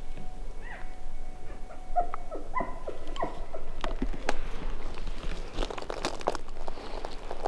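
Elk calls: several short whistled notes, each falling in pitch, over the first three and a half seconds, followed by scattered clicks and rustles of gear.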